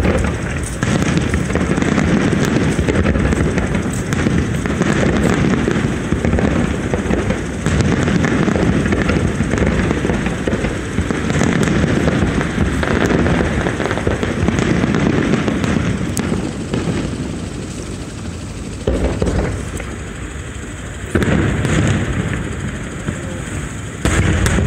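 Fireworks going off in a dense, nearly continuous barrage of bangs and crackles, easing briefly about three-quarters of the way through before fresh bursts near the end.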